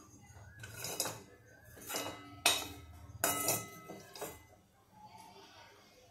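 Spatula scraping and knocking against a metal kadhai as puffed rice is scooped out and tipped onto a plate. There are several separate scrapes and clinks, and a sharp clink about two and a half seconds in is the loudest.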